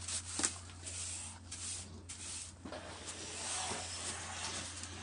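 Scrubbing a surface by hand: a few short rubbing strokes, then about two seconds of steady, continuous rubbing.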